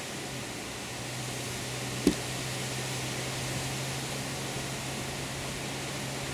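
Wind rushing steadily over the microphone, with a steady low hum under it and a single sharp thump about two seconds in.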